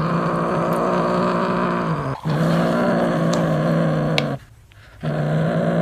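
A cat giving long, steady, low growls, three in a row with short breaks between them: a possessive warning growl from a cat guarding something it will not give up.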